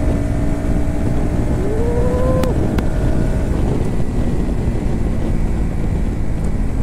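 Bajaj Pulsar NS160's single-cylinder engine running at cruising speed under heavy wind noise on the microphone. A short rising tone sounds about two seconds in.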